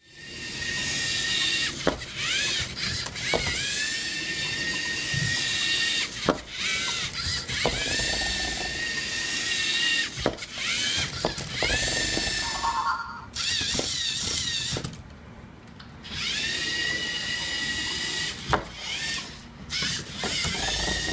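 LEGO Mindstorms robot's electric motors whining through their plastic gears, the pitch rising each time a motor starts, with sharp clicks and knocks of LEGO parts in between. The whine drops away for about a second two-thirds of the way through, then resumes.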